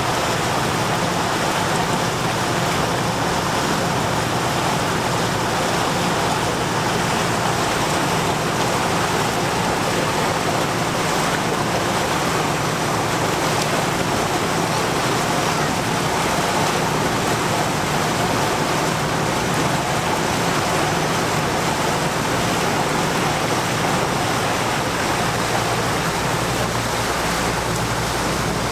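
Small passenger launch boat under way: a steady engine hum under the continuous rush of water along the hull. The low hum grows stronger near the end.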